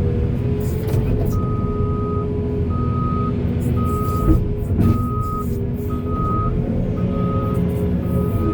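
Reversing alarm on heavy construction machinery beeping about once a second, starting about a second in, over the steady running of a diesel engine.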